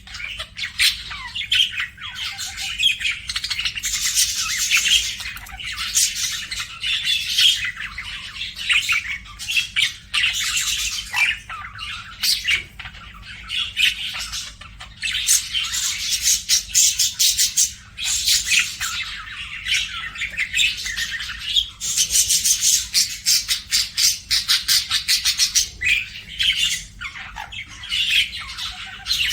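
Budgerigar chirping and chattering in fast, dense runs of high chirps and squawks, with only brief lulls.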